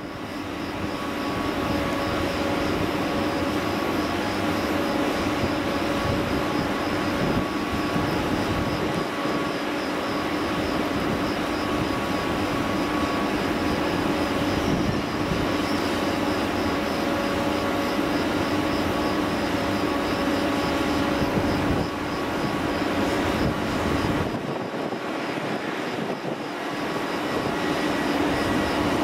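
Electric locomotive drawing a train of double-deck coaches at low speed: a steady whine from its traction equipment and blowers, several held tones over the rumble of the train.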